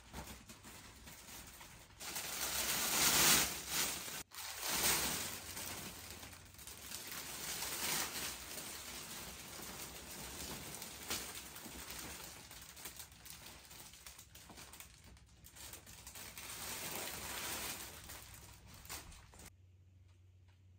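Packaging rustling and crinkling as gifts are unwrapped and handled, in uneven swells that are loudest in the first few seconds, with a brief break about four seconds in.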